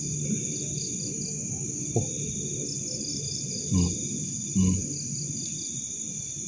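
Night insects, crickets among them, keeping up a steady high chorus, with short repeated chirps on top. A low rumble runs underneath, with a click about two seconds in and two short, louder low thuds around four seconds in.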